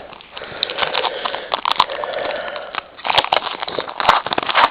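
Foil trading-card pack wrapper crinkling and crackling as it is handled and torn open, louder in two spells about three and four seconds in.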